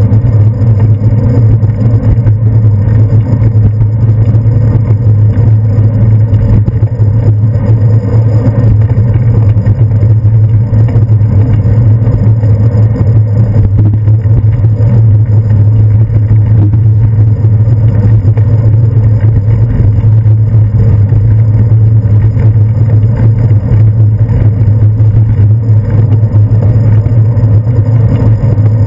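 Loud, steady low rumble of wind and road vibration picked up by a handlebar-mounted GoPro Hero 2 on a bicycle riding along a city street.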